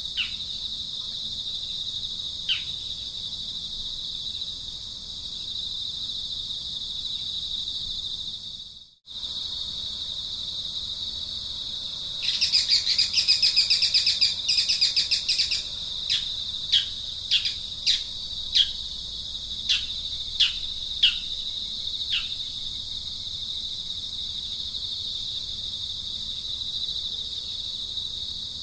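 Steady high-pitched insect drone, with a brief gap about nine seconds in. About twelve seconds in a bird gives a rapid chattering call for roughly three seconds, followed by a string of short, quickly falling chirps.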